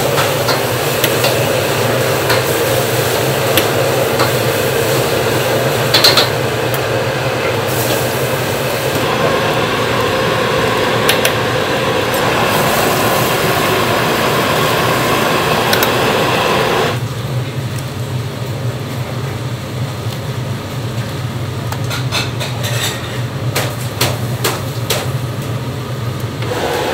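Commercial wok burner running under a wok of boiling vegetable soup broth, with a metal ladle stirring and knocking against the wok. The hiss drops markedly about two-thirds of the way through, and a run of sharp metal clinks comes near the end.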